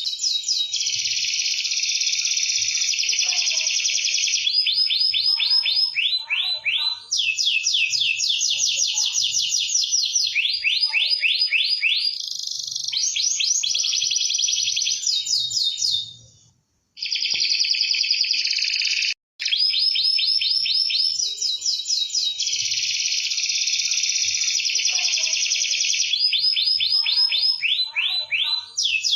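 Domestic canary in full song, singing long runs of fast trills and rolling tours, one phrase straight into the next. The song breaks off briefly twice just past the middle.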